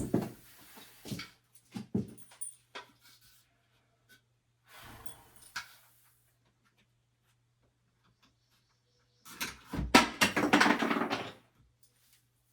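Hand-handling noises while fitting a shower valve's cover: a few knocks and clicks, a short scrape, then a louder spell of scraping and rustling about nine seconds in.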